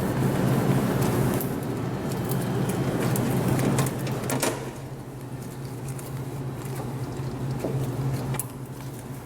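Damp cloth rubbing and wiping over the oven's interior surfaces, busiest for the first half, then quieter, with a few small knocks, over a steady low hum.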